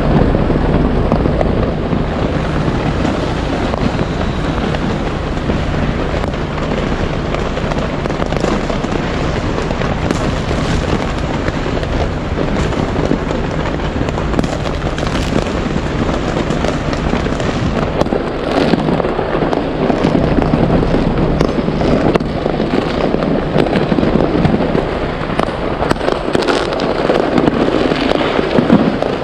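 Many fireworks going off at once: a dense, unbroken barrage of overlapping bangs and crackles.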